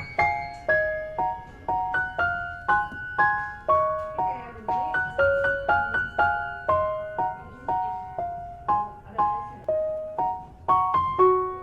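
Background music: a light piano melody of struck notes that ring and fade, in a steady rhythm.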